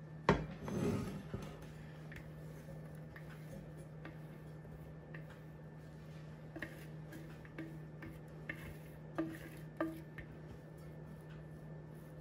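A glass mixing bowl handled over a ceramic serving bowl as a silicone spatula scrapes tabouli salad out of it: one sharp knock near the start, a brief scraping rustle, then scattered light taps and clicks of the spatula against the glass.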